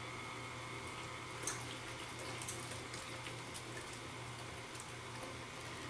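Stand mixer running steadily on low speed, a constant motor hum under the churning of cheesecake batter as heavy whipping cream is poured in, with a few faint clicks.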